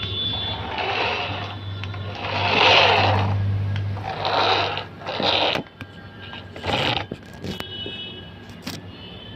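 Toy car's small electric motor whirring in uneven swells for about the first half, then several sharp clicks and knocks.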